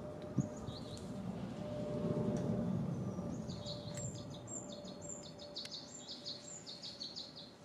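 Small birds chirping: a rapid run of short, high chirps from about three seconds in, with a few earlier notes, over a low background rumble that swells and fades in the first half.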